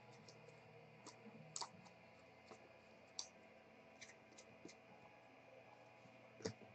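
Near silence with a few faint, scattered clicks and crinkles as trading cards and a clear plastic card sleeve are handled.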